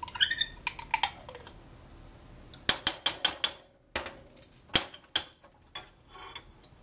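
A metal spoon tapping and clinking against a saucepan as peach preserves are spooned in, with a quick run of taps about three seconds in and a few single taps after.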